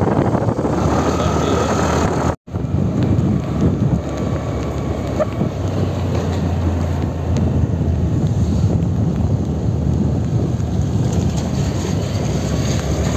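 Wind buffeting the microphone of a moving motor scooter, with the scooter's engine running underneath; the sound drops out for an instant about two and a half seconds in.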